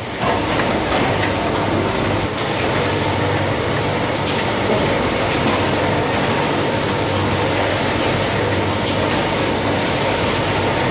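SF1500 ice cream cup filling machine running: a steady mechanical clatter over a low hum, with a brief sharp tick every two seconds or so.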